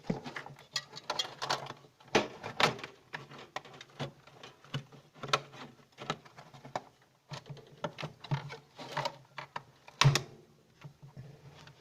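Irregular clicks, taps and knocks of fridge parts and tools being handled during repair work, over a low steady hum, with the loudest knock about ten seconds in.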